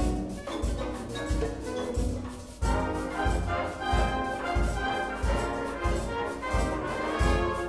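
Wind band playing a Cuban-style piece live: brass over percussion with a steady low beat. The music drops back for a moment, then comes in fuller and louder about two and a half seconds in.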